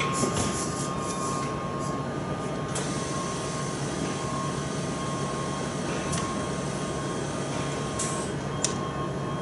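Steady machinery hum of a factory workshop with a faint high whine, broken by a few sharp clicks in the first seconds and again late on.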